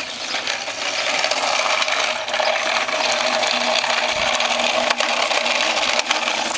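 Toy dump truck's wheels rolling over a concrete sidewalk as a child pushes it along, a steady rattling grind that gets louder about a second in.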